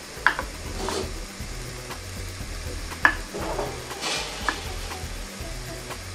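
Beef steak and shrimp sizzling steadily inside a closed Chefman electric panini grill press. A few sharp knocks cut through, near the start, about three seconds in and again a second later, and the hiss swells briefly in between.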